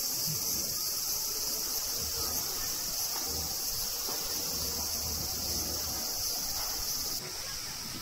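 Chorus of cicadas singing steadily, a high continuous buzzing hiss, which drops away suddenly near the end.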